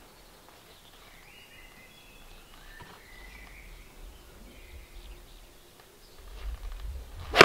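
Faint birdsong chirping, then at the very end one sharp, loud crack as a golf iron strikes a ball off a hitting mat.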